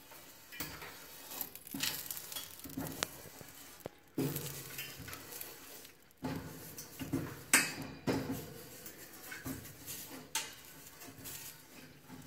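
An oiled half-potato on a fork rubbed back and forth along the stainless-steel rod grates of a Weber Genesis Gold gas grill to season them: uneven scraping strokes, with the fork now and then clinking against the metal rods. A sharp clink about seven and a half seconds in is the loudest sound.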